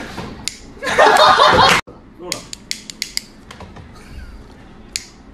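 A person's loud voice for about a second, then an abrupt cut to a quieter stretch of scattered sharp clicks.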